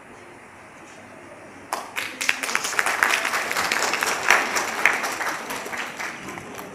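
Audience applause breaking out suddenly about two seconds in, many hands clapping together, then thinning out toward the end.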